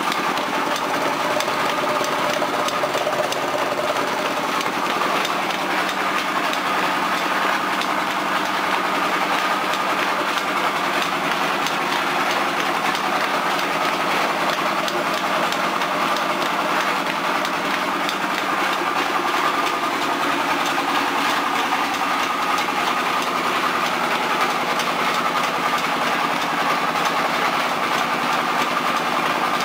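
Wheat flour mill machinery running steadily: a constant mechanical drone with a fine, fast rattle and a faint held tone that never changes.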